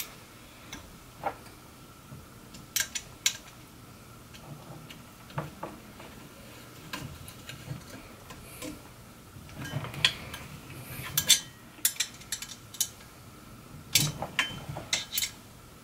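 Small metal parts clinking and clicking as the aluminium-extrusion frame of a Creality Ender 3 3D printer is put together by hand with screws and a hex key. The clicks are sharp and irregular, and they come thicker in the last few seconds.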